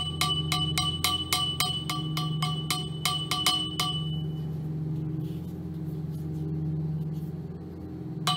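A steel pipe being tapped in a quick, even series, about four metallic ticks a second, each with a short ringing tone. The taps stop about four seconds in and start again at the very end, over a steady low hum.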